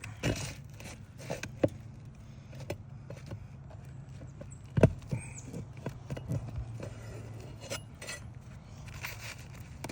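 Scattered clicks, light scrapes and knocks of hand work under a roof shingle, freeing it so a replacement shingle can be slid in, over a steady low hum. The loudest knock comes a little under five seconds in.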